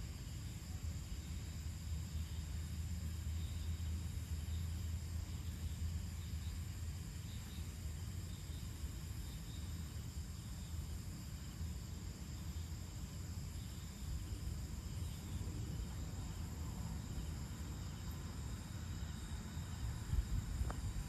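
Evening chorus of crickets and other insects, a steady high chirring, over a low rumble.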